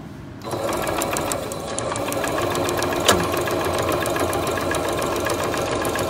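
Singer electric household sewing machine starting about half a second in and stitching steadily through layered cotton fabric, a fast even needle rattle. One sharp click about three seconds in.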